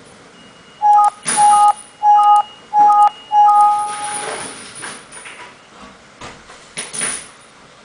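Five loud electronic beeps at one steady pitch, the last held longest, in quick succession over about three and a half seconds, followed by brief rustling.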